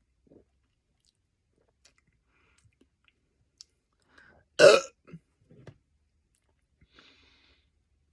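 A man belching once, short and loud, about halfway through, from the gas of a just-chugged Coke, with a few faint mouth noises around it.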